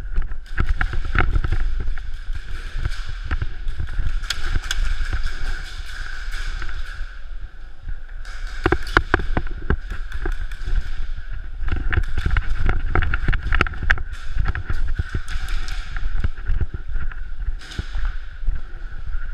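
Indoor airsoft game: scattered sharp cracks and knocks, airsoft guns firing and BBs hitting plywood walls, irregular and in clusters, over a steady hum.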